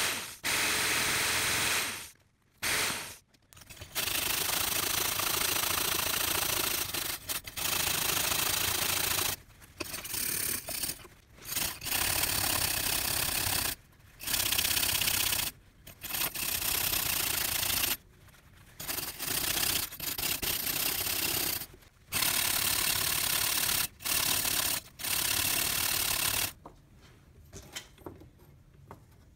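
Power-driven wire cup brush scouring rust off a crosscut saw's small metal handle fittings held against it: harsh, loud scraping in stretches of a second or few, with short breaks as the part is pulled away and turned. It stops near the end.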